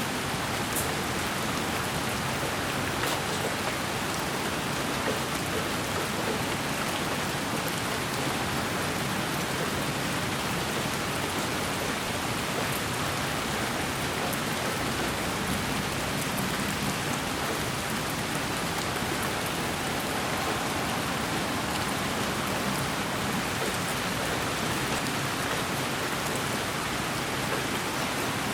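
Steady, even hiss of sleep-aid white noise that sounds like rain falling on a surface, with a few faint ticks like single drops.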